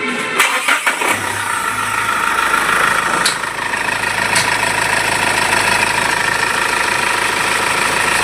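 Mahindra Scorpio diesel engine starting and settling into a steady idle about a second in. It now runs without the earlier clatter, its broken EGR welded, cleaned and refitted. Two light clicks are heard in the middle.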